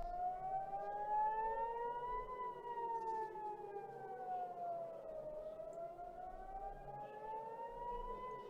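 Civil-defence warning siren wailing at low volume: a single pitch with overtones climbs for about two seconds, sinks slowly for about three, then climbs again near the end, with a fainter lower tone weaving beneath.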